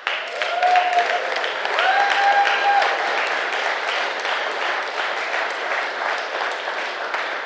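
Audience applauding in a lecture hall, a dense, even clapping that eases slightly toward the end.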